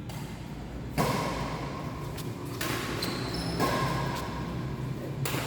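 Badminton being played in a sports hall: sharp racket hits and thumps of play, a few short high squeaks, and a general rise in court noise about a second in.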